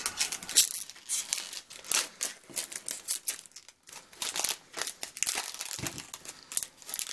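Shiny foil wrapper of a hockey card pack being torn open and crinkled in the hands: a rapid, irregular run of sharp crackles.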